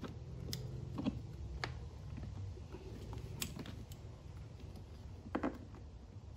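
Hands working a plastic air-intake boot and its rubber adapter loose from a small generator's carburettor intake, giving a handful of scattered light clicks and taps over a low steady hum.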